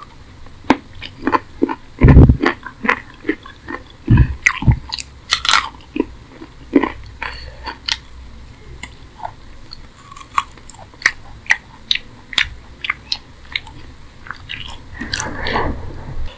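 Close-miked mouth sounds of eating rice and curry with the fingers: wet chewing and many sharp lip smacks. A few heavy low thumps come about two and four seconds in.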